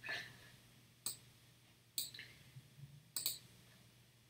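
Computer mouse clicking: four short, sharp clicks about a second apart.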